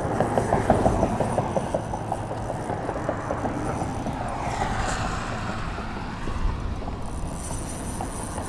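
Ultralight spinning reel being cranked to bring in a hooked bluegill, the turning rotor and gears giving a rapid run of small clicks, plainest in the first couple of seconds. Wind rumbles on the microphone underneath.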